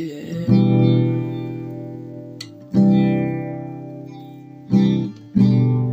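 Guitar strumming single chords in a song's outro, four strokes each left to ring and fade.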